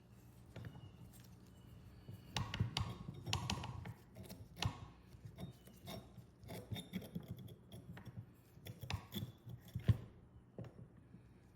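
A run of irregular clicks and knocks from parts and tools being handled on the vintage hand-crank bench grinder being restored. The knocks start about two seconds in, and the sharpest one comes near the end.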